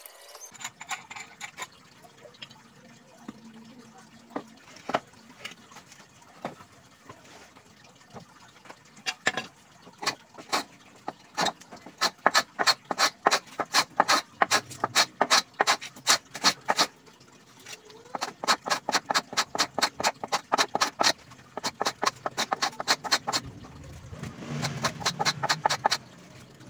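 Hand plane worked over a clamped teak board in quick, short strokes, several a second, in runs with pauses between. A low hum swells near the end.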